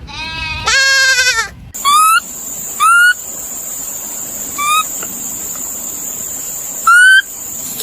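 A goat bleats in one long wavering call. After a cut, a small animal gives four short, high, rising squeaks, spaced a second or more apart, over a steady high-pitched whine.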